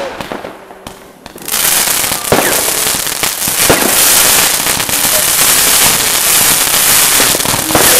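New Year's Eve fireworks: a few single bangs, then about a second and a half in a dense, loud crackling sets in and keeps going, with a few louder bangs through it.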